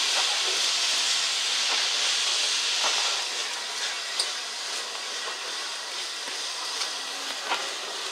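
Steady steam hiss from the Flying Scotsman, LNER A3 Pacific 60103, easing off slightly about three seconds in, with a few faint knocks.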